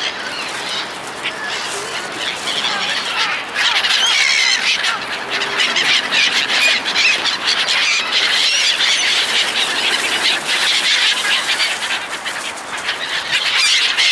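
A large flock of seagulls calling at once: a dense, continuous chorus of overlapping squawks and cries that grows louder about three and a half seconds in.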